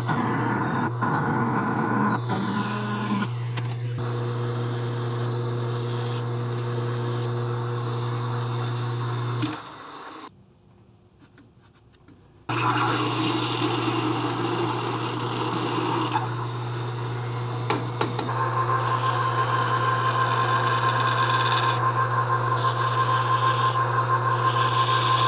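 Metal lathe running with a steady motor hum, a twist drill cutting into the end of a spinning threaded steel workpiece for the first few seconds. The lathe stops about ten seconds in and it goes much quieter for about three seconds. It then starts up and runs again, and a steady high tone joins in over the last several seconds.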